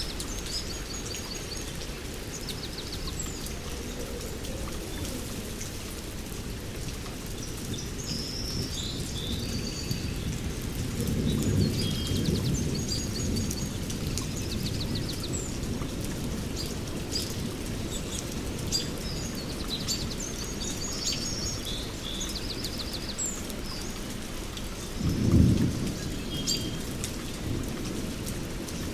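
Steady rain with thunder: a long rumble about eleven seconds in and a louder, shorter clap about twenty-five seconds in. Birds chirp and trill throughout over the rain.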